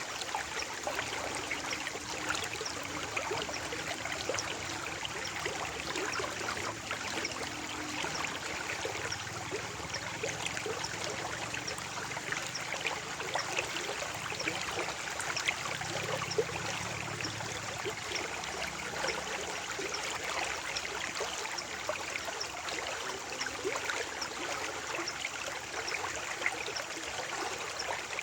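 Water flowing steadily in a stream, with small splashes and trickles.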